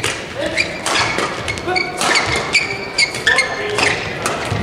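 Badminton doubles rally: a quick, irregular series of racket strikes on the shuttlecock, with short sneaker squeaks on the court floor in between.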